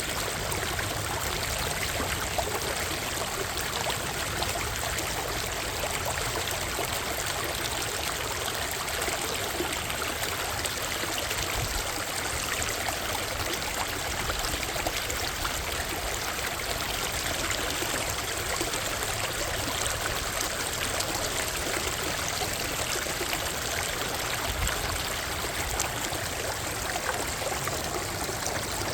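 Water of Minnehaha Creek rushing and splashing steadily, an even unbroken flow.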